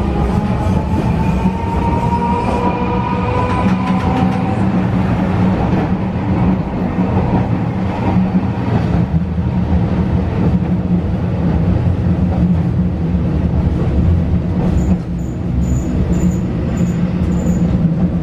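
Sapporo streetcar 240-series tram running, heard from inside the car: a steady low hum over the rumble of wheels on rail, with a whine rising slightly in pitch over the first few seconds as it gathers speed. Near the end comes a run of short high pips, about two a second.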